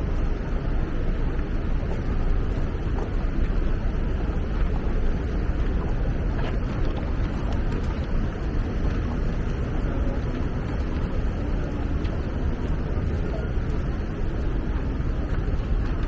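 City street ambience: a steady low rumble and hiss with no single clear event, of the kind made by traffic and wind on the microphone, with a faint click about six and a half seconds in.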